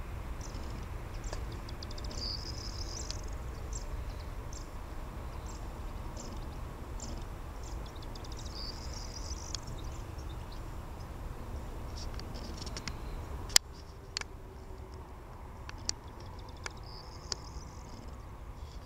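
Low steady rumble of a Boeing 737-800's jet engines at idle as it taxis, with small birds chirping and twittering over it in several short bursts. A single sharp click comes about two-thirds through, after which the rumble is a little quieter.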